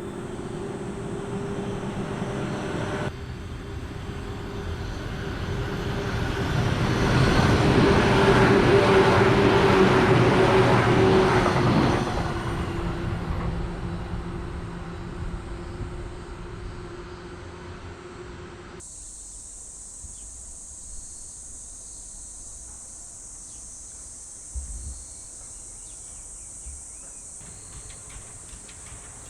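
An electric train running past with a steady hum that swells to its loudest and then fades away. After a sudden cut, only a steady high insect drone remains.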